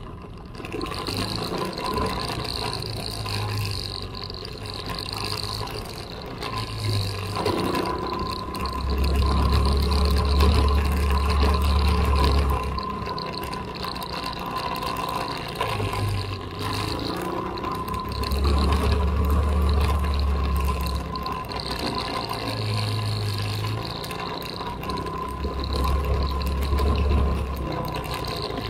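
Off-road vehicle engine running steadily while driving along a dirt trail, with loud rumbling gusts of wind on the microphone.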